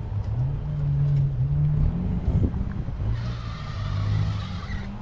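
A 4x4 off-road vehicle's engine revving under load, its pitch rising over the first two seconds and then dropping back. A higher-pitched sound rides over it from about three seconds in until near the end.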